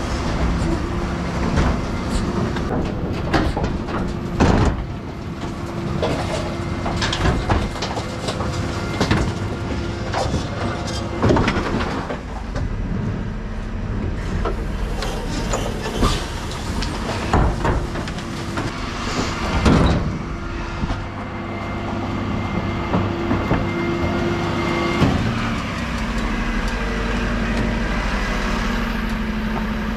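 Refuse truck's rear bin lift and hydraulics running steadily while a large four-wheeled wheelie bin is lifted, tipped and emptied into the hopper, with repeated metal clanks and bangs as the bin is shaken and knocked against the lift.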